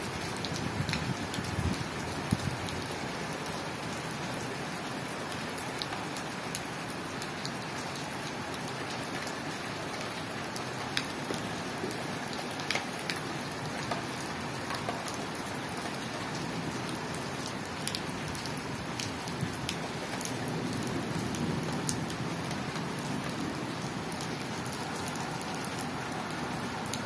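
Steady rain falling on a flat tiled rooftop, a continuous hiss with scattered sharper taps of single drops landing close by.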